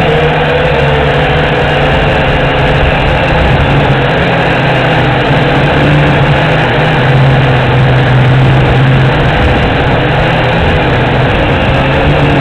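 Small quadcopter's electric motors and propellers humming steadily, their pitch wavering a little, with wind buffeting the microphone.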